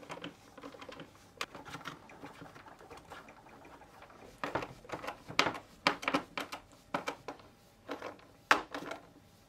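Light clicks and knocks of hard plastic as the detergent tank holder is handled and fitted onto a Karcher K3 pressure washer's plastic housing: a few scattered taps at first, then more frequent knocks from about halfway through.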